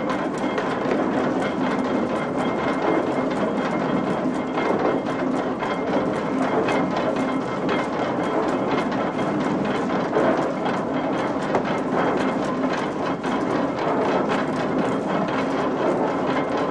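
Old snuff mill machinery running: a wooden sieve box hung on chains shaking back and forth, giving a steady, dense clatter of wood and iron.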